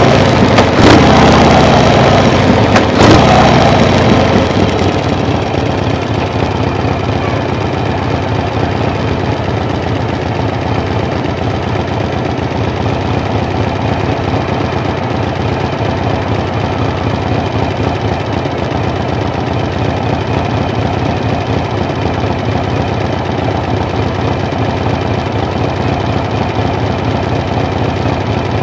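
A vehicle engine running steadily. It is louder with a couple of sharp knocks in the first few seconds, then settles to an even, lower level.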